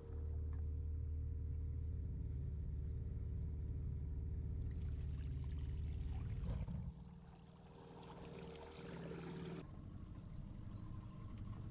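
Wooden river longboat under motor, its engine running at a steady drone with water rushing along the hull. About seven seconds in the sound drops quieter and continues as a lower hum.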